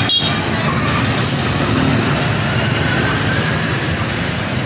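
Steady street traffic noise, with engines running by.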